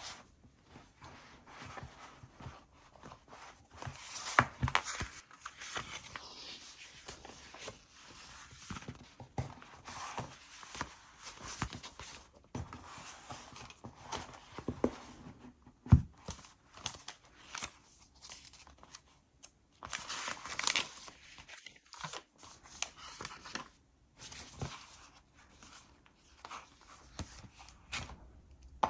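Close-up handling of paper and leather stationery: rustling and crinkling with scattered light taps and clicks, the sharpest knock about halfway through.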